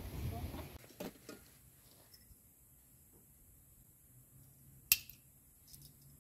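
Soft handling noises from a raw chicken on a metal tray for the first second, then quiet, broken about five seconds in by one sharp click with a short metallic ring as a small kitchen knife is handled, followed by a couple of faint clicks.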